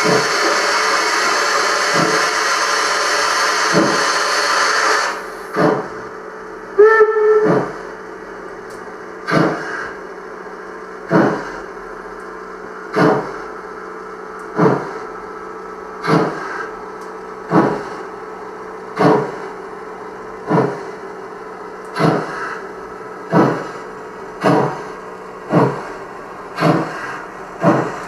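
Gauge 1 model BR 50 steam locomotive's sound effects: a loud steady steam hiss for about five seconds, a short whistle toot about seven seconds in, then exhaust chuffs that start about one and a half seconds apart and quicken steadily as the locomotive gets its goods train under way.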